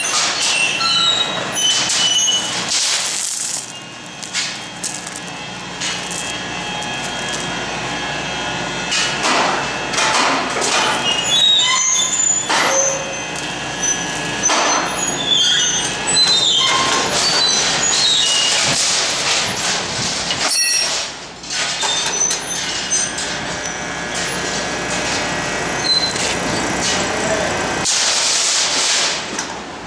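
Hoist chains clinking and steel scraping against steel as a freshly hot-dip galvanized Land Cruiser frame is swung on chains and lowered onto a concrete floor. The sound is a busy clatter full of many short, high-pitched metallic squeals and clinks.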